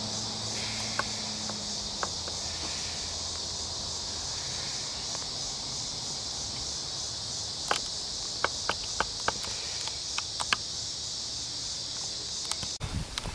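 Steady, high-pitched chorus of insects in summer trees, pulsing slightly. A run of sharp clicks comes in the second half, and a faint low hum fades out in the first two seconds.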